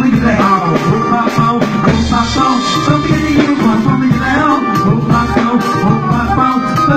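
Band music with a steady beat, its bass hitting about once a second under a held melodic line.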